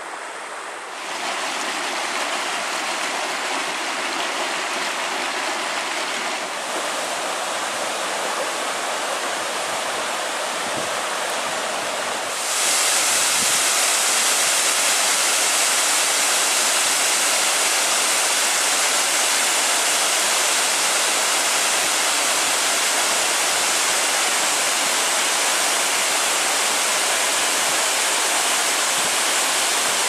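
Steady rush of a shallow mountain stream running over rocks. About 12 seconds in it gives way abruptly to the louder, brighter, steady roar of a waterfall splashing down a rock face.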